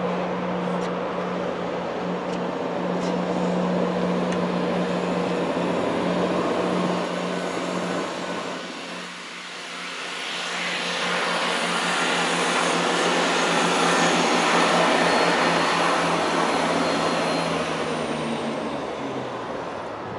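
A Class 43 HST diesel power car running away into the distance, its steady engine hum fading out near the end. A broad rushing noise dips about halfway through, then swells to become the loudest sound in the later part.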